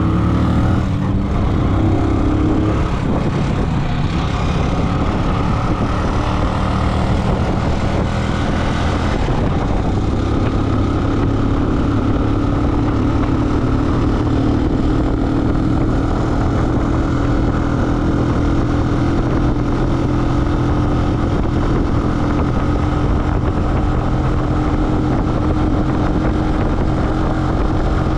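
A vehicle engine running while driving along, with road noise. The engine's pitch falls in the first couple of seconds, then holds steady.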